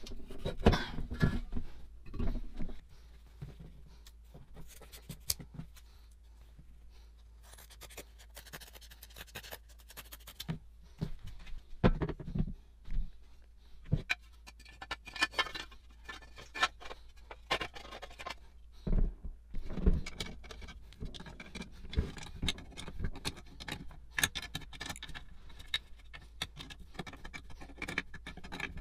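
Metal parts of a Sheen flame gun being handled and fitted together: scattered clinks, taps and scrapes of the brass fuel tank, its valve and the burner head and lance against each other and the table, busier near the end.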